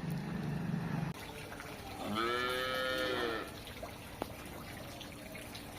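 A calf mooing once, a single call of just over a second that rises slightly and falls away. Before it, a low steady drone stops about a second in, and a short click follows the call.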